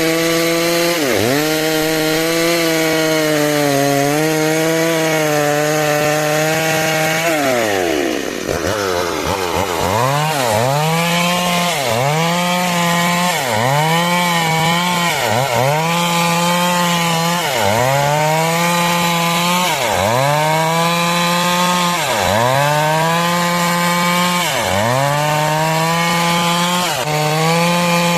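Stihl MS 382 two-stroke chainsaw running at high revs while cutting lengthwise through timber to make boards. Its pitch dips briefly and recovers every second or two as the chain bogs in the cut, with a longer, deeper dip about eight seconds in.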